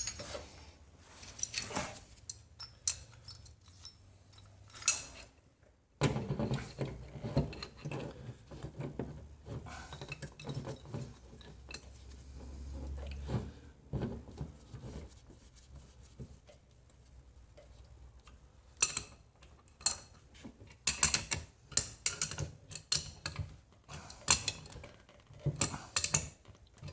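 Irregular light metal clicks and clanks from a body-shop dent-pulling clamp being fitted and worked on welded studs in a car door panel; the clicks come thicker near the end.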